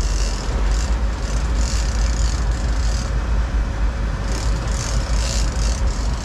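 Sportfishing boat's engine idling in neutral, a steady low rumble, with wind buffeting the microphone and irregular hissing gusts over it.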